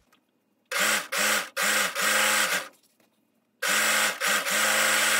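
Serger (overlock machine) running in short bursts, stopping and starting, in two spells with a pause of about a second between, as it serges the raw edges of a fabric seam to stop fraying.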